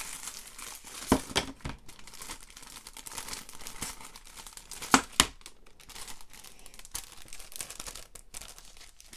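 Plastic packaging crinkling and rustling while flat diorama kit panels are handled, with a few sharp clacks of pieces being set down. The loudest is a pair about five seconds in.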